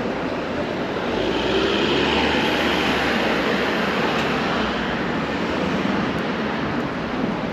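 A car passing close by from behind and driving off down the street: tyre and engine noise that swells about a second in, is loudest for a couple of seconds, then slowly fades.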